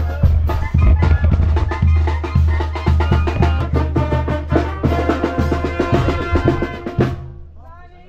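Mexican banda music playing loud: a steady tuba bass line under drums and brass. It stops about seven seconds in.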